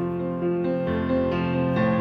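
Background music with piano, moving from note to note about every half second.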